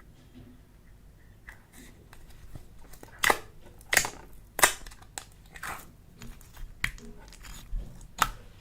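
Slime being squeezed and pressed by hand, giving a string of sharp pops and crackles at uneven intervals, loudest a little over three to five seconds in.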